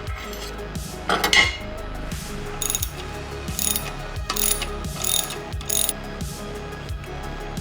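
Hand ratchet wrench clicking in short strokes as engine bolts are turned, a louder burst about a second in, then about five quick strokes, with background music underneath.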